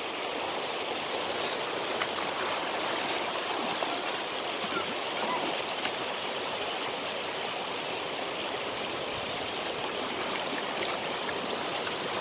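Shallow canal water rushing steadily over a low concrete spillway.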